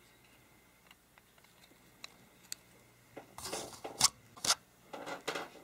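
Hands handling a furnace hot surface igniter and its metal mounting bracket: faint ticks, then rustling and a couple of sharp clicks about four seconds in as the parts are fitted together.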